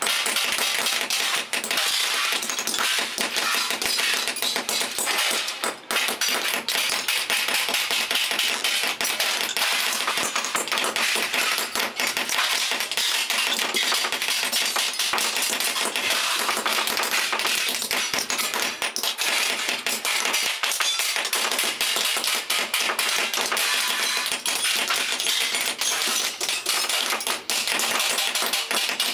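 Several hand hammers striking steel shovel D-handle fittings on small steel anvil blocks: a busy, overlapping clatter of quick metallic taps with no pause.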